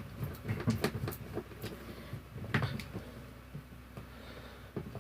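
Clicks and knocks of a hair straightener and its parts being handled and worked on during dismantling, busy for the first three seconds, then sparse with one more click near the end.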